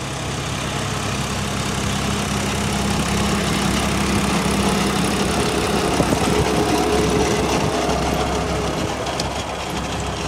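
John Deere tractor's diesel engine running steadily under load, pulling a Punni super seeder through tilled soil. The sound grows louder towards the middle and eases off near the end, with a faint whine in the middle.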